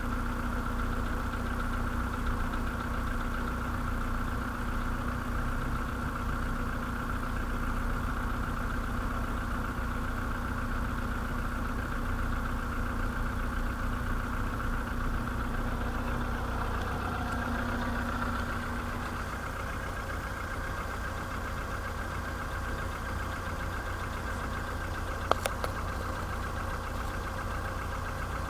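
VW Polo sedan's CFNA 1.6-litre four-cylinder petrol engine idling with a knock that the owner puts down to the pistons (piston knock at 192,000 km). About two-thirds of the way through a steady hum drops out and the running gets slightly quieter; a couple of short clicks come near the end.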